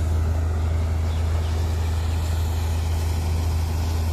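Tractor-powered wheat thresher running steadily: an even, low drone from the tractor engine and the thresher drum, over a steady hiss.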